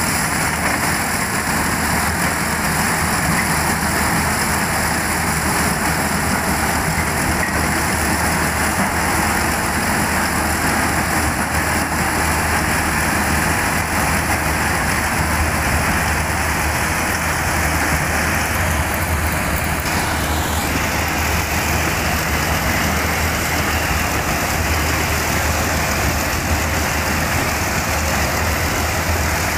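Kubota DC-108X tracked combine harvester running steadily under load, its diesel engine and harvesting machinery working as the corn header cuts and feeds in dry corn stalks.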